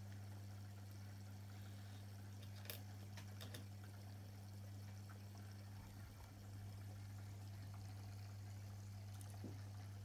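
Steady low hum of an aquarium pump with faint water trickling, and a few faint clicks about three seconds in and again near the end.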